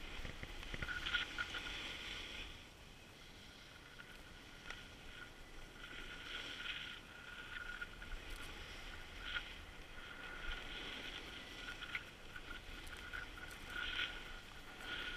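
Skis carving on groomed snow, a hissing scrape that swells in waves with the turns. A low wind rumble on the microphone runs beneath it.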